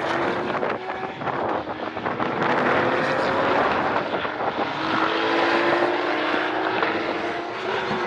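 GT race car engines at full racing speed going past, several engine notes overlapping with their pitch rising and falling as the cars rev and shift gears.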